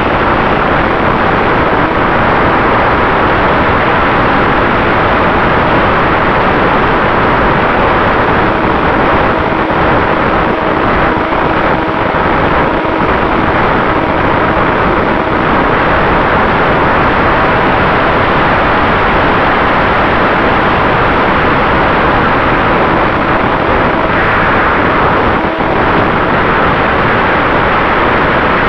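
Steady rush of wind and the electric motor and propeller of a HobbyZone Super Cub RC plane in flight, heard from the camera mounted on the plane. The motor is a Turnigy XP 3536 brushless outrunner and gives a faint steady whine.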